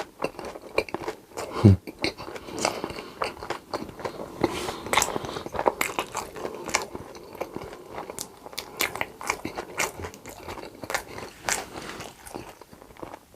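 Close-miked eating: crunchy bites and wet chewing of food, with many quick crackling clicks. One brief low sound, falling in pitch, about two seconds in is the loudest moment.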